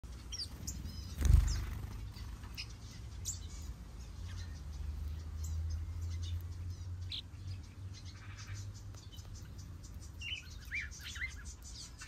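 Small aviary birds (finches and white-eyes) chirping: short high chirps scattered throughout, with a run of quick rising chirps near the end. A loud low thump about a second in.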